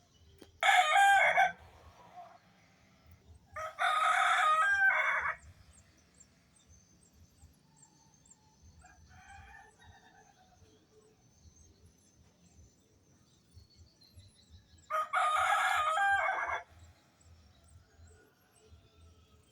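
Rooster crowing three times: a short crow about a second in, a longer one a few seconds later, and a third near the end that falls in pitch as it finishes.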